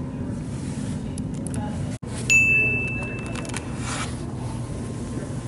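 A single high electronic beep, sudden and held for just under a second, the loudest sound here, followed by a few light clicks, over a steady low hum.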